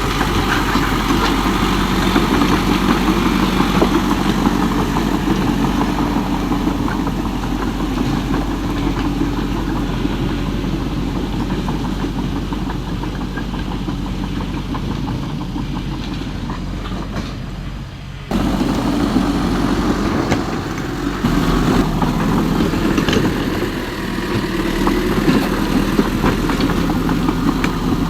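Radio-controlled model excavator and bulldozer running, a steady mechanical whir with a dip and an abrupt jump back up about two-thirds of the way through.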